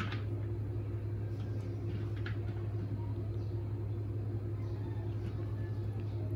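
A steady low hum, like a machine or electrical appliance running, with a faint tap about two seconds in.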